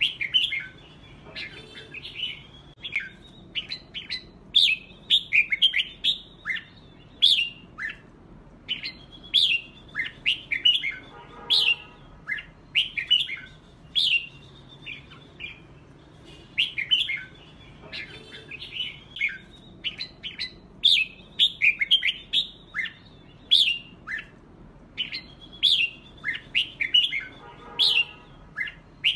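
Red-whiskered bulbuls fight-singing: quick, lively phrases of chirpy whistled notes given back and forth in a singing contest, the kind of song played to provoke caged bulbuls into singing. A lower, rougher call cuts in about eleven seconds in and again near the end, and the same run of song comes round again about every sixteen seconds.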